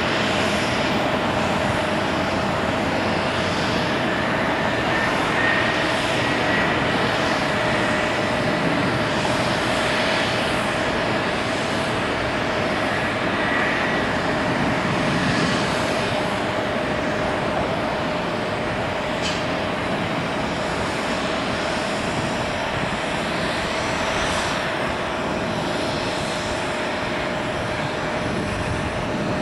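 Jet airliner engines running at taxi power: a steady rush of engine noise with a constant whine over it.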